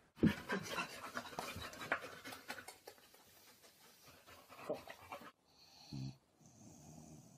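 A dog panting hard for about five seconds, then an abrupt cut to quieter sound with one short low-pitched call.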